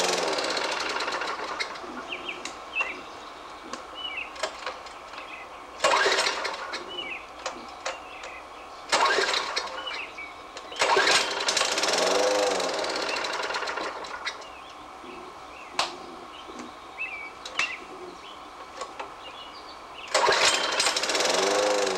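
Gasoline lawn mower engine starting and stalling again and again: four times it catches with a sudden burst, runs for a second or a few, and dies away. The mower starts and quits without running on, the stalling fault its owner is demonstrating.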